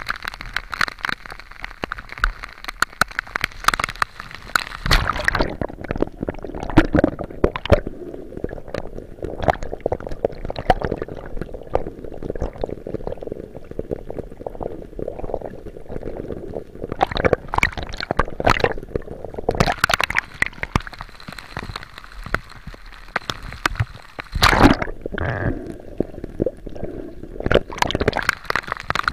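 Water sloshing and gurgling around a swimmer's camera as it moves between underwater and the storm-whipped sea surface, duller for a stretch in the middle, with sharp splashes of waves and rain when it is at the surface.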